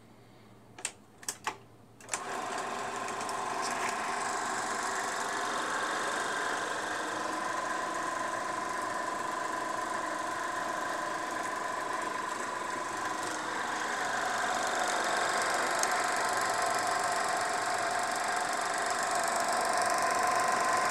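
Eiki 16mm sound projector: three quick clicks of its controls, then about two seconds in the motor and film transport start up and run with a steady mechanical clatter and a high hum.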